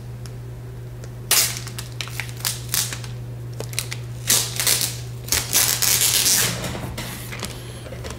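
Clear plastic wrapping being peeled off a laptop lid, crinkling and crackling in a run of short bursts that starts about a second in and fades out near the end.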